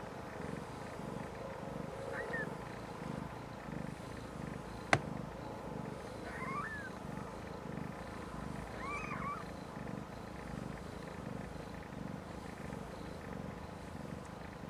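Snowshoe Siamese cat purring steadily in an even, pulsing rhythm, with a few faint high squeaks and one sharp click about five seconds in.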